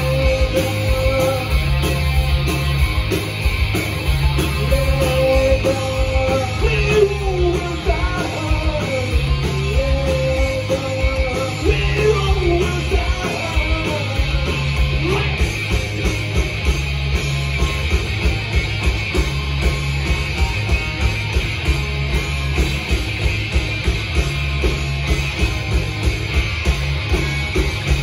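Live rock band playing loud: distorted electric guitars, bass guitar and drums with a steady driving beat, and a singing voice over the band.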